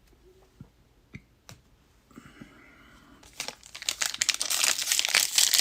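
A few light taps, then a foil trading-card pack wrapper being torn open and crinkled, loud and dense from about three seconds in.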